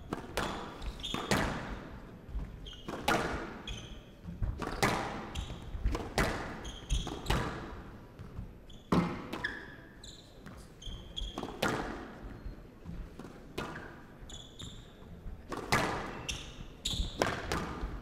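Squash ball being struck by rackets and smacking off the court walls in a long rally, a sharp hit roughly every second, with short high squeaks of shoes on the wooden court floor in between.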